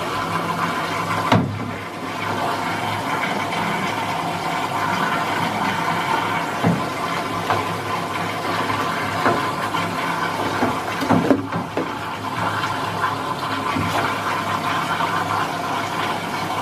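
Washing machine filling with water: a steady rush of water into the drum over a low hum, with a couple of brief knocks.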